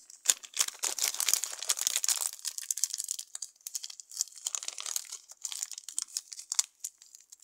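Clear plastic bag crinkling as brown modelling clay is handled and taken out of it: dense crackling for the first couple of seconds, then scattered crinkles.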